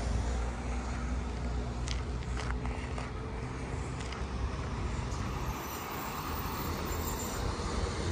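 Steady road traffic noise: a continuous low rumble with a few faint clicks.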